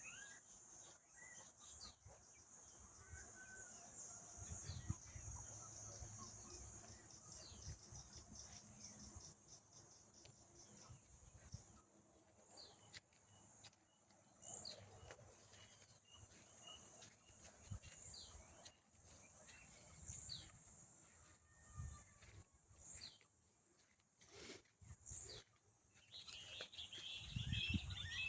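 Faint countryside ambience: a steady, high-pitched insect drone with scattered short bird chirps, which grow busier near the end.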